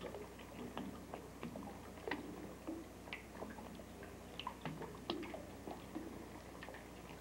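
Faint scattered clicks and rustles, spaced irregularly every half second or so, over a steady low hum.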